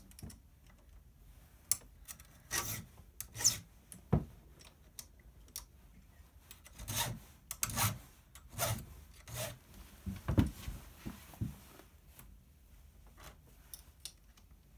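Flat file rasping on a chainsaw chain's rakers through a raker (depth) gauge, in about a dozen short, uneven strokes with pauses and a few sharp metal clicks: the rakers are being filed down.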